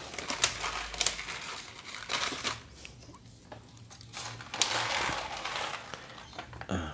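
Crinkling and rustling of a foil bag of 0.12 g airsoft BBs being handled, in two stretches with a few sharp clicks.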